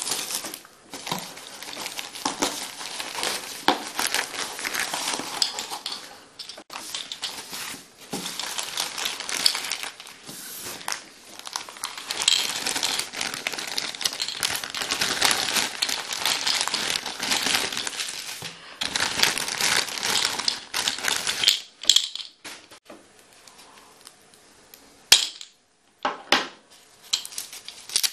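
Plastic packing wrap and tape crinkling and crackling as a parcel is unwrapped by hand, thinning to scattered crinkles and clicks near the end.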